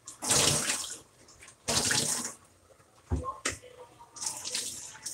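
Water from a kitchen faucet splashing as a hair-extension bundle is rinsed under it in a stainless-steel sink: two loud gushes in the first two seconds or so, a low thump about three seconds in, then quieter splashing.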